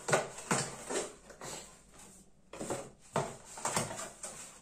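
Cardboard box being dismantled by hand: flaps pulled apart and folded, giving a run of scraping, rustling snaps with a short lull about two seconds in.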